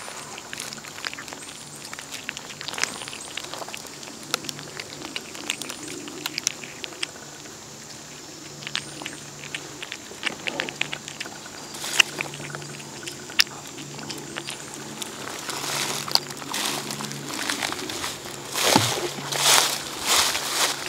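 A cat eating wet canned tuna from a bowl: a steady run of small wet chewing and lapping clicks, with a few louder smacking bursts near the end.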